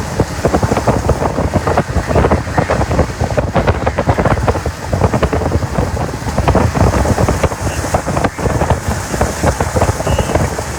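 Constant rushing, crackling noise of storm wind and rain around a moving vehicle, with road noise underneath.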